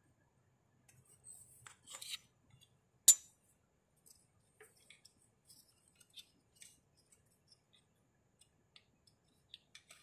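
Small clicks and rustles of hands working a tube spanner and the wiring plug on a car's reverse light switch, with one sharp, loud metallic click about three seconds in.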